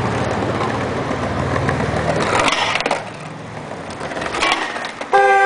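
Skateboard wheels rolling over sidewalk paving slabs with a car engine running close by, then a car horn honks once, loud, for under a second near the end.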